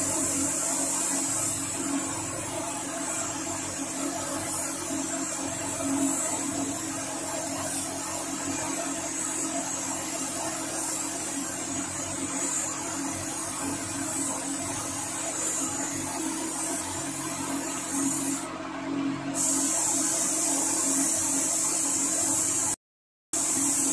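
Gravity-feed spray gun hissing steadily as it sprays paint, over the constant hum of its air supply. The hiss drops out briefly about 18 seconds in.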